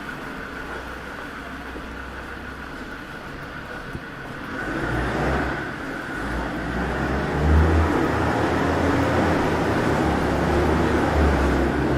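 Road traffic: cars running past on the street, with a low rumble that grows louder about halfway through.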